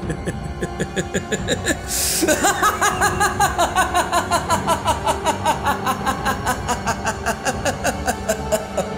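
A man's maniacal villain laugh over dramatic background music: a light snicker at first, then about two seconds in it breaks into a long, loud run of 'ha-ha-ha' laughs, each falling in pitch, about four a second.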